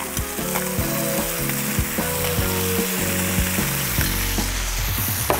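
Cockles in their shells sizzling in hot oil with garlic and ginger in a wok, a steady hiss with a few clicks of shell against the pan. A low backing melody plays underneath.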